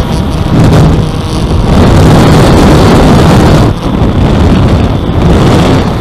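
Heavy wind buffeting on the onboard camera's microphone of a foam-board RC A-10 in flight, mixed with the hum of its twin electric-driven propellers. The rush dips briefly a little over halfway through.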